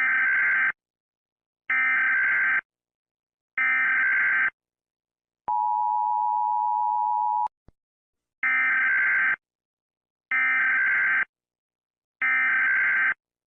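US Emergency Alert System tones. First come three bursts of SAME digital header data, each just under a second long with about a second between them. Then a steady attention tone runs for about two seconds, followed by three more identical data bursts.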